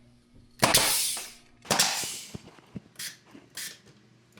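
Woodworking impacts while window trim blocks are fastened in: two loud, sharp bangs about a second apart, each with a short hissing tail, then several lighter knocks and clicks.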